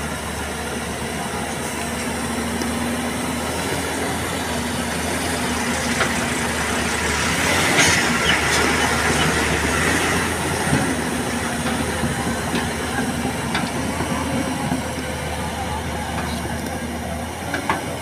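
JCB tracked excavator working: its diesel engine runs steadily under load while the bucket digs and scrapes through gravelly soil, growing louder and rougher in the middle with a few sharp knocks.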